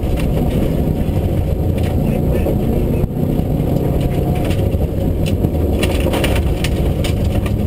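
Rally car engine running hard at speed on a gravel stage, heard from inside the cabin, mixed with tyre and gravel noise. The engine note dips briefly about three seconds in, and sharp ticks cluster near the end.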